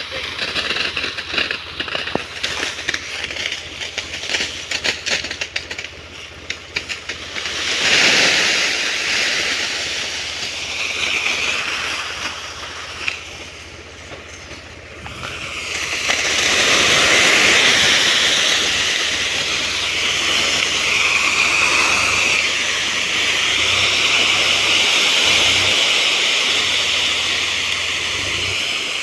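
A load of corn cobs tipping out of a trolley and pouring onto a pile. At first it crackles and clatters, with a loud rush about eight seconds in, then a steady rushing hiss as the mass slides out from about sixteen seconds on, with a low hum underneath.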